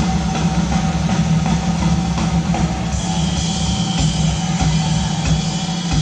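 Live hard-rock band playing, drum kit prominent under sustained instruments, with a held high note coming in about halfway through.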